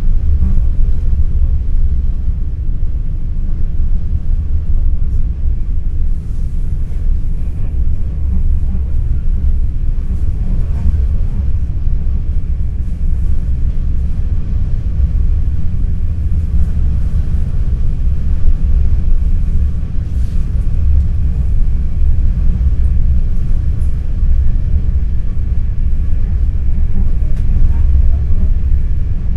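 Steady low rumble of an NS ICNG (Alstom Coradia Stream) electric train running, heard from inside the passenger carriage, with faint passenger voices underneath.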